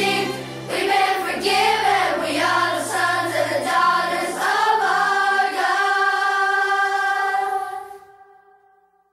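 Recorded song with voices singing over an accompaniment with sustained bass notes. It ends on a long held chord that fades out to silence near the end.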